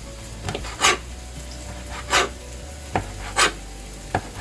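Knife cutting preserved lemon into small cubes on a cutting board: about six irregular scraping strokes.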